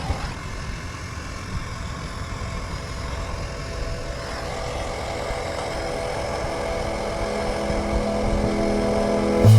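A vehicle engine running steadily with a low rumble, and steady tones building up over the second half.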